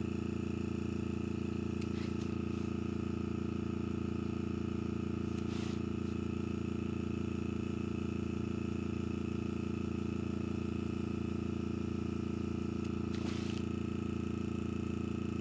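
An air compressor running with a steady, even hum, with a few short hisses of an airbrush spraying paint.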